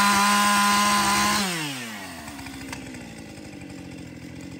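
Chainsaw running at high revs, then the revs fall away about a second and a half in and it runs on steadily at a lower speed, quieter.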